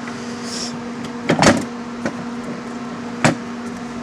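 Metal tool box drawer being pushed and banged against a drawer that won't close: a short slide about half a second in, a loud metal clunk with some ringing about a second and a half in, and a sharper knock near the end, over a steady hum.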